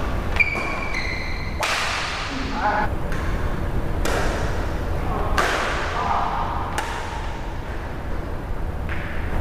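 Badminton rackets striking a shuttlecock back and forth in a rally, a sharp crack every second or two, about six in all. A short high squeak just after the start, and a steady low hum underneath.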